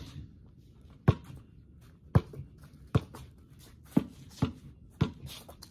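A basketball being dribbled on the driveway: sharp bouncing thumps about once a second, coming a little quicker towards the end, about seven in all.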